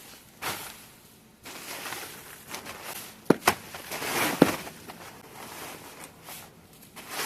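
Footsteps crunching in snow at an uneven pace, with three sharp clicks or knocks between about three and four and a half seconds in.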